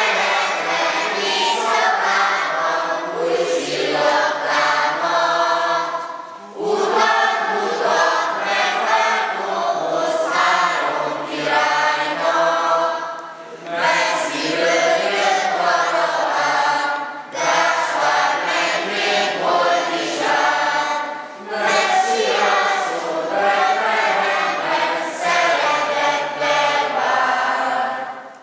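A group of children singing a Christmas song together, in sung phrases broken by short breaths.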